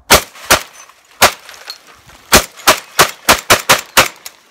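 Saiga 12 semi-automatic 12-gauge shotgun fired in quick succession, about eleven shots: two shots, a pause of about a second, then a quickening string of rapid fire.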